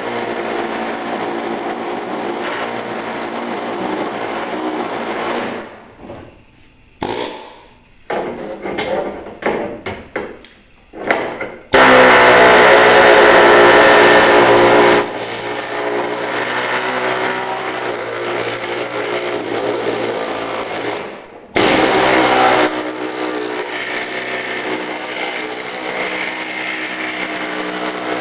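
Power flanging tool hammering rapidly along the edge of a sheet-metal patch panel to form a stepped flange. It runs steadily, stops briefly about five seconds in, and starts again in a few short bursts. It then runs louder for a few seconds around the middle and again briefly later.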